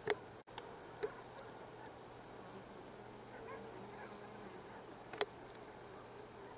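Hunting dog barking three short, sharp times, at the start, about a second in and about five seconds in, over a faint steady background.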